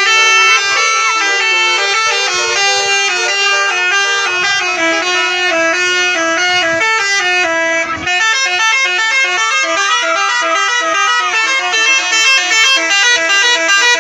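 Indonesian bus telolet horn, a multi-trumpet musical horn, playing a stepping tune of steady notes, with a brief break about eight seconds in.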